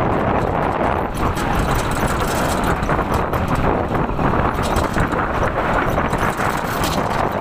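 Wind blowing across the microphone: a loud, steady rush of noise with a heavy low rumble.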